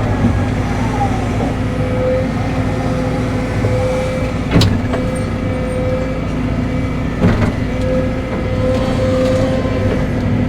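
Caterpillar 313 excavator's diesel engine running steadily under work, with a higher steady tone that comes and goes, and two sharp knocks about four and a half and seven seconds in.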